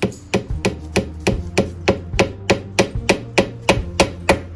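Ball-peen hammer tapping a tiny brass-type nail through a metal medallion into a wooden hiking staff: a steady run of sharp taps, about three a second.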